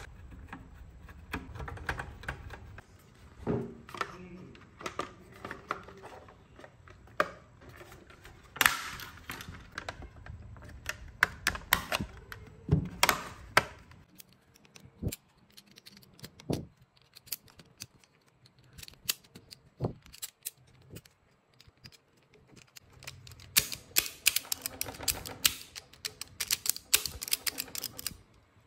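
Plastic and metal parts of a radio cassette player clicking and knocking as they are handled and fitted together, with a screwdriver turning a screw into the plastic case at the start. The clicks come sparsely in the middle and crowd together near the end.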